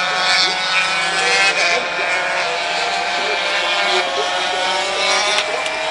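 Several 125cc two-stroke single-cylinder Grand Prix motorcycles passing at high revs, their high-pitched engine notes overlapping.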